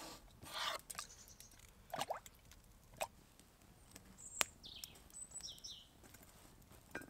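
Sparse faint knocks and clicks of outdoor cooking: a knife cutting a potato on a wooden board, then a metal pot handled beside a campfire, with a louder knock near the end. A few faint high bird chirps come in the middle.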